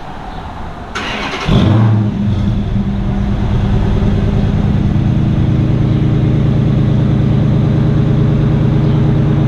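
Dodge Charger R/T's 5.7 L HEMI V8 starting: the starter cranks about a second in, the engine catches with a short rev flare, then settles into a steady idle. The exhaust runs through Flowmaster Super 10 mufflers with no resonators and stock headers.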